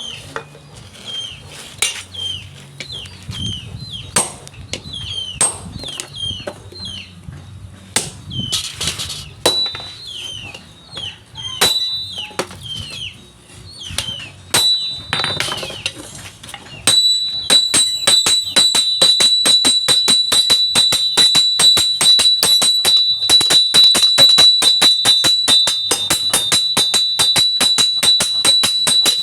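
Hammer blows on steel over an anvil, each strike ringing: spaced-out blows with short falling chirps between them, then, a little past halfway, fast steady hammering that continues to the end.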